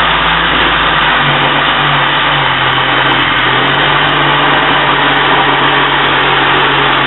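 Battery-powered Black & Decker saw cutting through plywood, its motor running steadily under load with the noise of the blade in the wood. The motor's pitch drops slightly about a second in and then holds.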